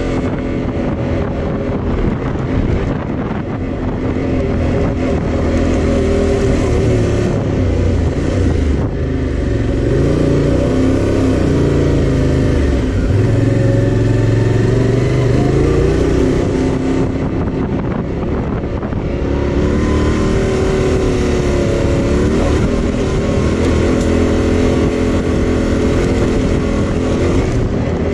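2021 Yamaha Tenere 700's 689 cc parallel-twin engine running under way, its pitch rising and falling repeatedly as the throttle is rolled on and off.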